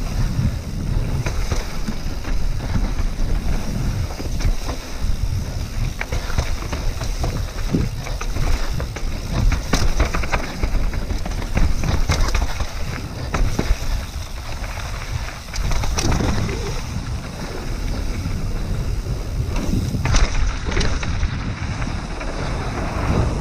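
Wind rushing over the camera microphone of a downhill mountain bike at speed, with the bike rattling and knocking over rough ground and jumps.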